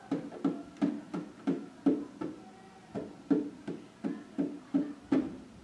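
Hand drum played lightly with the hands in a calm, repeating rhythm of short strokes, about two or three a second, with a brief pause midway through the pattern.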